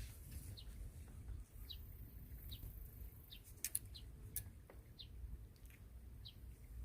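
A bird giving short, high chirps, about one a second, over a low rumble. Two sharp clicks come a little past the middle.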